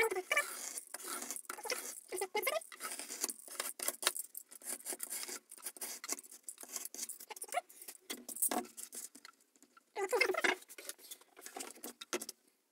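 Utility knife cutting through a cooker-hood filter mat on cardboard: a dense, scratchy rasp over the first several seconds. Then come scattered knocks and rustles as the fleece and the plastic housing are handled, with a louder clatter about ten seconds in.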